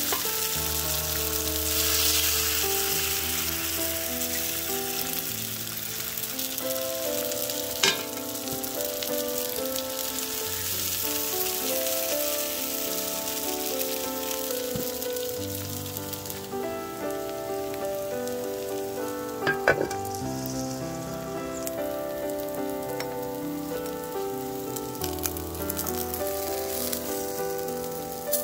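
Bánh xèo batter with shrimp and onion sizzling in hot oil in a nonstick frying pan. The sizzle eases about halfway through. Two sharp clicks come near the 8-second and 20-second marks, and soft instrumental music plays underneath.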